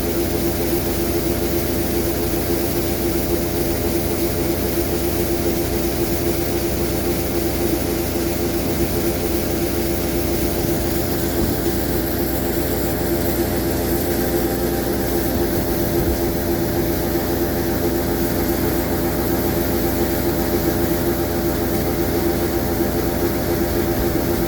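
Engine of heavy machinery running at a constant speed: a steady drone with a strong, even hum that does not change.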